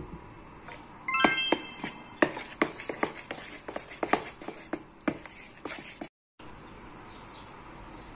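A metal spoon knocks and scrapes against a mixing bowl while stirring flour into a soft dough: irregular sharp clinks, about three a second, for several seconds. A brief ringing tone sounds about a second in.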